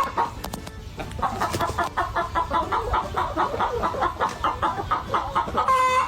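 Short bird calls repeated rapidly, several a second. A brief steady tone sounds at the start and again near the end.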